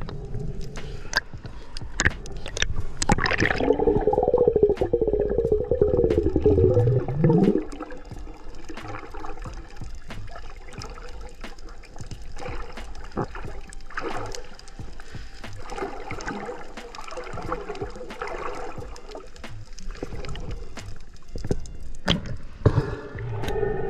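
Water gurgling and sloshing, loudest from about three to seven and a half seconds in, with many sharp clicks scattered throughout.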